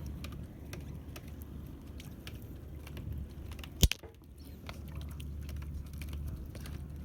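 Handline being hauled in by hand on a small fishing boat after a strike: scattered small clicks and knocks of line and gear over a low steady hum. There is one sharp, loud knock about four seconds in.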